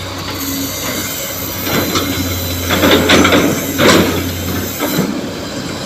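Angle grinder running and cutting steel reinforcing bars, with loud rasping bursts of metal grinding about three and four seconds in; a steady low hum cuts off near the end.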